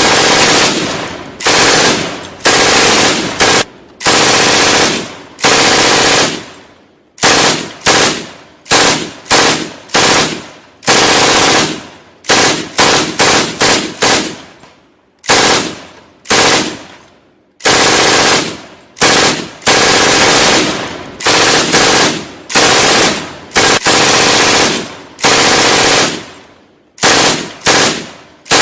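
Gunfight sound effect: bursts of automatic gunfire, some short and some longer, one after another with brief gaps, each burst starting sharply and dying away.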